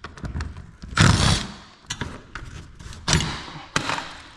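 Metal clanks and scrapes from letting tension off a garage door torsion spring with winding bars. The loudest clank comes about a second in, two more near the end, with lighter clicks between.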